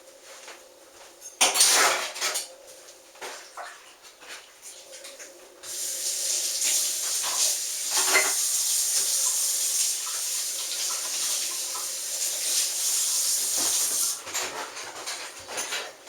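Dishes and cutlery clattering, loudest about a second and a half in, then a kitchen tap turned on about five and a half seconds in, running steadily into the sink with a few more clinks of dishes.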